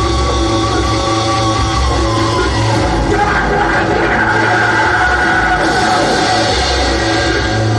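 Heavy rock music: sustained instrument lines over a pulsing bass, loud and continuous.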